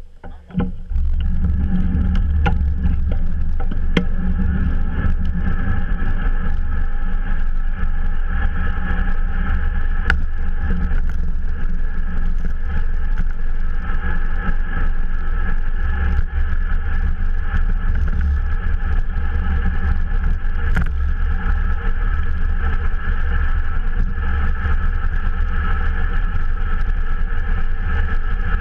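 Steady rush of wind across a bike-mounted GoPro's microphone, mixed with road-bike tyres rolling on asphalt at riding speed, a heavy low rumble with a constant hiss on top.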